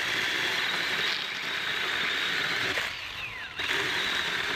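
Small cordless mini chainsaw running and cutting through wood, a steady high-pitched whir of the chain in the cut, dipping briefly about three seconds in.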